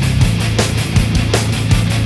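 Loud hard-rock music with a driving drum beat and sustained bass notes.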